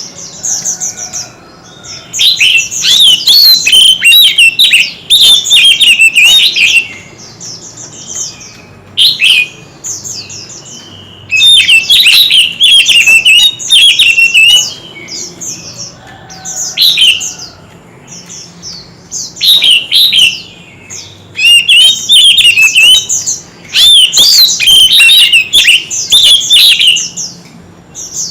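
White-rumped shama singing in loud bursts of rapid, varied whistled phrases, each a second to a few seconds long, with short pauses between them. This is a full, intense competitive song.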